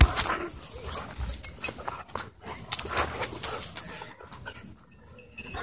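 German Shorthaired Pointer panting and scuffling close to the microphone while playing with a frisbee toy, in irregular noisy bursts that ease off after about four seconds.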